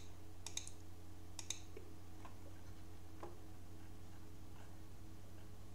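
Computer mouse clicking: a quick run of clicks in the first second and a half, then two fainter single clicks, over a low steady hum.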